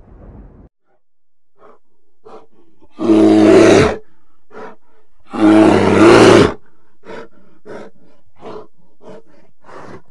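A large animal roaring: two long, loud roars about two seconds apart, among a string of short grunts. A low rumble cuts off within the first second.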